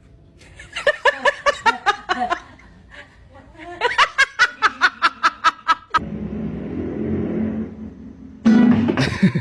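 Laughter in two bouts of rapid, pitched ha-ha pulses, about seven a second. It is followed by a steady low rushing noise and a loud burst near the end.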